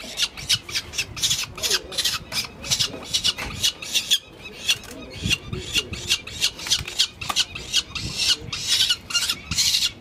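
Downy peregrine falcon chick giving harsh, raspy cries, about three a second, while it is held and handled for ringing.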